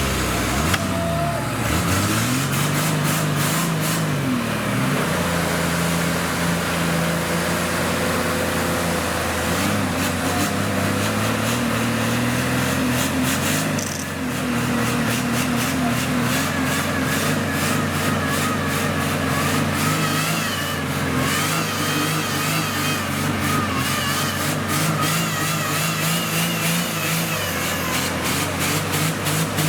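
Off-road 4x4 engine revving up and down a few times, then running steadily at low revs under load. A wavering higher whine joins about halfway through.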